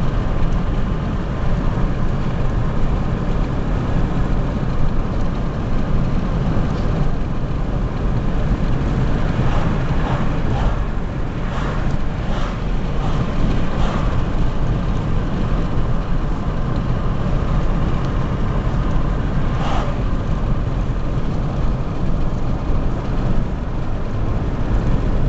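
A car driving: a steady low rumble of engine and road noise, with a few faint short sounds around the middle.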